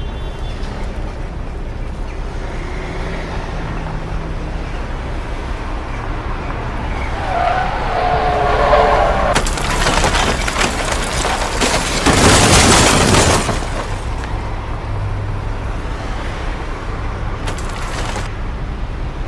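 Truck cab rumble at highway speed, then a wavering squeal as the truck leaves the road. It crashes through trees and brush with loud cracking and scraping impacts, loudest about twelve seconds in, and a last short crash comes near the end.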